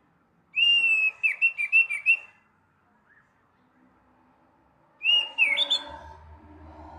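Orange-headed thrush singing: two short phrases of clear whistled notes with quick trills, the first about half a second in and the second about five seconds in.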